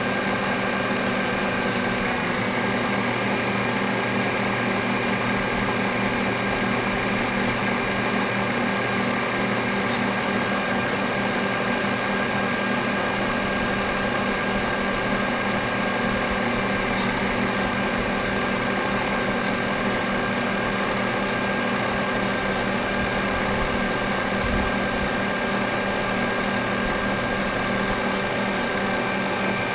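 Radio-controlled model boat's electric motor and drive running steadily, heard from a camera on the boat's deck: a constant mechanical whine made of several steady tones, with no change in throttle.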